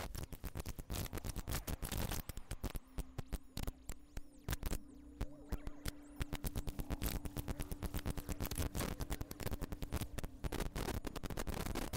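Live electronic noise music from laptops and patched electronics: a dense, irregular stream of crackling clicks and glitches, with a steady low tone held under it from about three seconds in until near the end.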